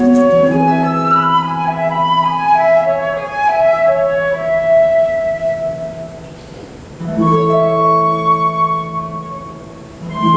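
Flute and harp playing a classical duet: a flute melody over low sustained harp notes. The music eases off, and new notes begin together about seven seconds in and again near the end.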